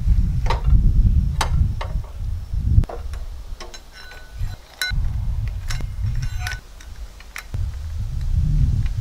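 Steel aerator spike pieces clinking and clacking as they are slid onto the axle rod one after another, a scatter of sharp metal knocks, some of them ringing briefly, over a low rumble that comes and goes.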